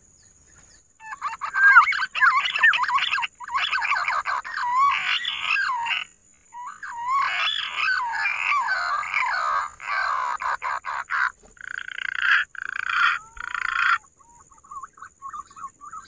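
Bird song: a loud, varied run of wavering whistles and chattering notes in phrases broken by short pauses, dropping to fainter notes near the end.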